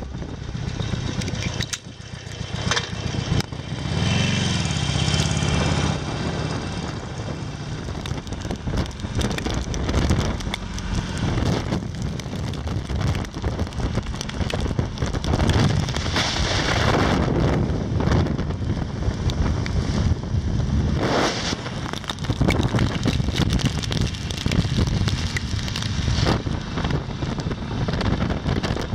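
Wind buffeting the microphone over a Harley-Davidson Sportster 883's V-twin engine running while the motorcycle is ridden on the road.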